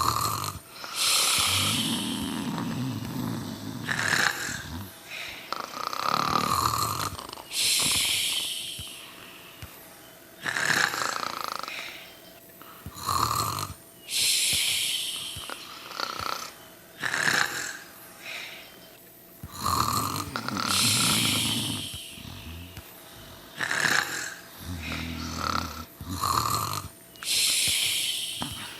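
Snoring in slow, repeating breath cycles. Each cycle has a low snore on the intake and a long hissing breath out, coming round about every six to seven seconds, with shorter snorts in between.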